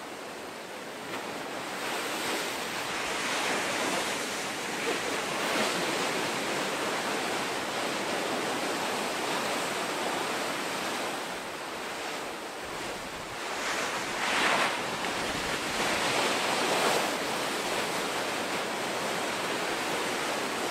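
Ocean shorebreak: heavy waves crashing and whitewater rushing up the beach, swelling louder a couple of seconds in and again around fourteen to seventeen seconds in.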